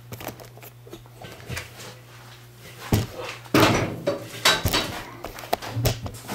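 Knocks and clatter of a round wooden bowl blank screwed to a backing board being handled and set down against the bandsaw table. Several sharp knocks come from about three seconds in, the loudest just after, over a low steady hum.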